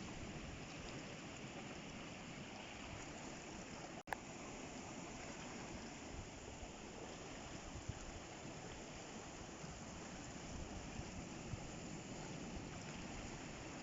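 Steady rush of sea water washing over rocks and into the pools, with a brief sudden break about four seconds in.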